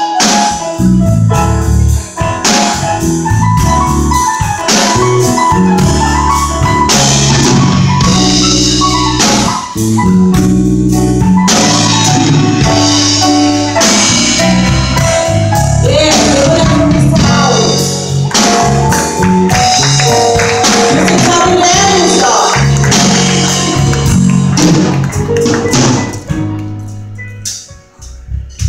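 Live band playing: a woman singing over mallet percussion and a drum kit. The music dies down near the end.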